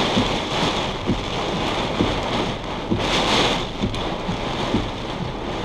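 Heavy rain and gusting wind beating on a vehicle during a severe thunderstorm, heard from inside: a steady wash of rain with many small hits, swelling with a gust about three seconds in.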